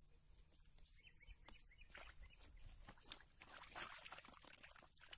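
Faint rustling, scraping and clicking of close handling, made by hands working the fishing gear and the catch.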